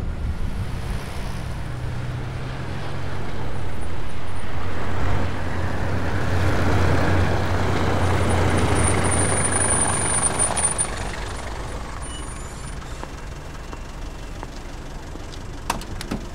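A London black cab's diesel engine running as the taxi drives up and pulls in, the rumble swelling and then easing off. A thin high whine sounds for about two seconds in the middle, and a couple of sharp clicks come near the end.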